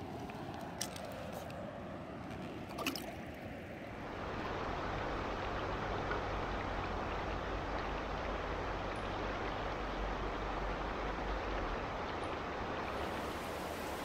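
Running river water: a softer flow with two short knocks in the first few seconds, then from about four seconds in a louder, steady rush of fast, broken river current.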